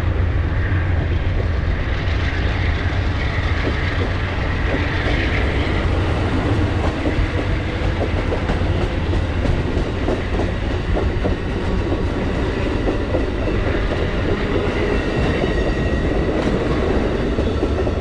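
Amtrak passenger train rolling past, its wheels clicking over the rail joints over a steady low rumble.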